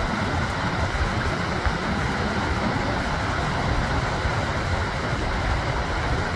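Sea surf breaking and washing onto a sandy beach, a steady rush with no single crash standing out, and wind buffeting the microphone.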